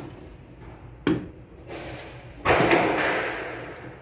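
Knock, then scraping and rattling as electrical wires and a switch are handled and pushed into a wall box. A sharp knock comes about a second in; a louder scrape begins about two and a half seconds in and fades over a second.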